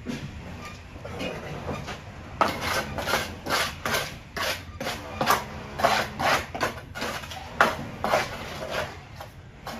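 Rhythmic hand-tool work: short sharp strokes, about two a second, begin a couple of seconds in and stop near the end.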